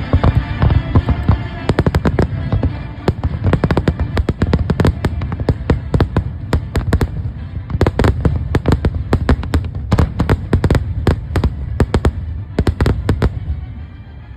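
Fireworks going off in a rapid volley: many sharp bangs a second over deep booms, thinning out near the end.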